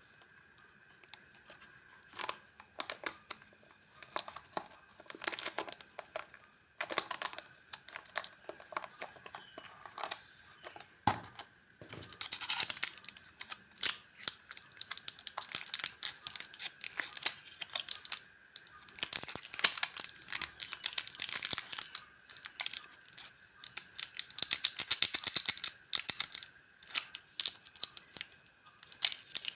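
Plastic snack wrappers crinkling and being torn open by hand, in runs of quick crackles that come and go.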